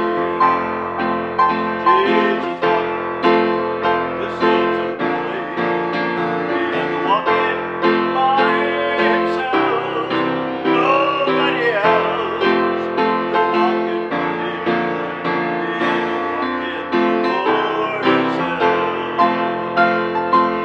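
Upright piano played solo: a flowing piece of chords and melody, with note attacks coming at a steady, unhurried pace.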